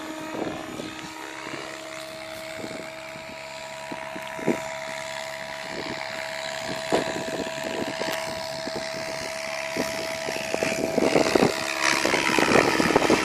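SAB Goblin electric RC helicopter in flight: a steady whine from its rotor head and motor, held at one pitch by the VBar governor. It grows louder near the end, with the pitch sweeping as the helicopter passes closer, and wind buffets the microphone.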